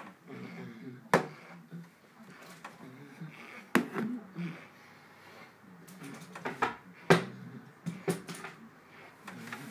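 Sharp knocks of a paint tin and a small cup being put down and handled on a concrete floor, several separate knocks with the loudest about a second in and about seven seconds in, and faint handling noise between them.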